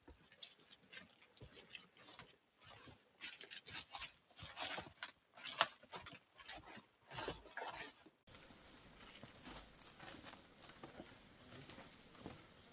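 Footsteps crunching on dry leaf litter and twigs, with clothing and a backpack brushing through undergrowth, in an irregular walking rhythm. About eight seconds in, this cuts off abruptly to a quieter, steady forest background with a few faint steps.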